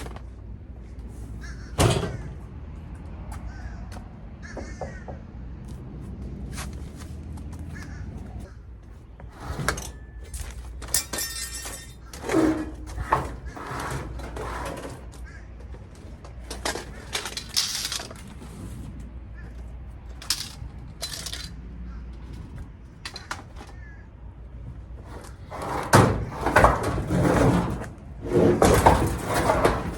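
Household things being moved and handled: repeated knocks, bangs and scrapes with squeaks, a brief fast rattle about a third of the way in, and a loud stretch of clattering near the end.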